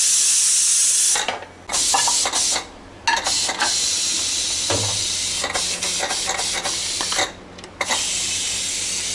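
Steel pressure cooker on a gas stove venting steam with a loud hiss. The hiss breaks off several times for about a second and starts again. A few light clicks and knocks of crockery come in the middle.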